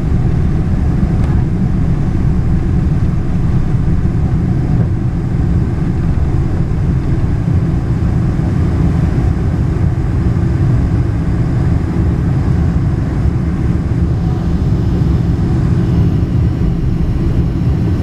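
Steady low rumble of a Boeing 747-400's four turbofan engines and the airflow, heard inside the passenger cabin as the airliner climbs out after take-off.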